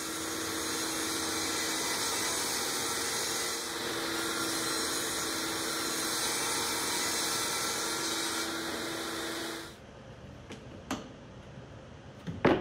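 Bosch jobsite table saw and its dust extractor running steadily as a half-inch particle-board panel is ripped, cutting off suddenly about ten seconds in. A few light knocks follow as the cut panel is set into the wooden seat frame.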